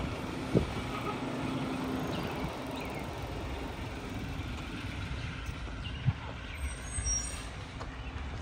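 Mack Granite rear-loader garbage truck's diesel engine rumbling steadily at a distance as the truck pulls away and turns, with a couple of sharp knocks, one about half a second in and one about six seconds in.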